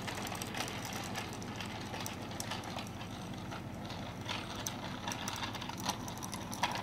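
A child's small bicycle rolling on a concrete sidewalk: light, irregular clicking and rattling over a steady hiss.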